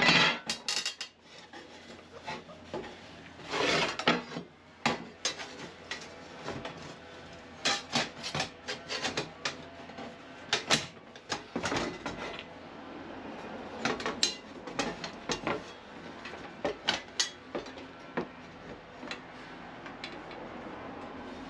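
Cut 2.3 mm steel plates knocking and scraping against each other as they are handled and fitted together: many sharp clanks and clicks, with a longer scrape about four seconds in, and lighter knocks in the second half.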